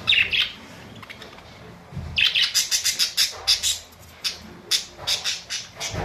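Budgerigars chirping: a short burst of calls at the start, then from about two seconds in a quick run of short, sharp chirps, several a second, until near the end.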